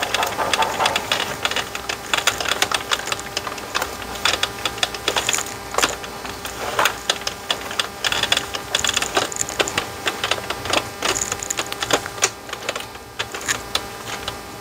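Cloth rag rubbing over the clear plastic lens of an instrument cluster, wiping off window cleaner, with many quick irregular clicks and taps from the plastic cluster housing being handled.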